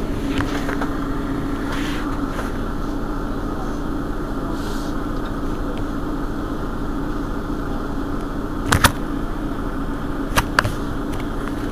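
Mercedes-Benz Citaro G articulated bus engine idling steadily at a stop, with a held hum. Two pairs of sharp clicks come near the end of the idle.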